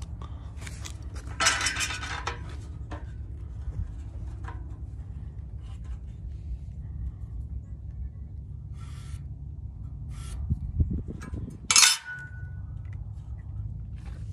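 Metal speed square and marker being handled against steel square tubing: scraping and light clinks as the square is set against the tube and a cut line is traced, with a sharp metallic clink near the end. A steady low rumble runs underneath.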